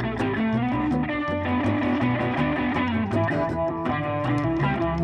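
Blues-rock band playing live: electric guitar lead line with bent notes over bass and drums, no vocals.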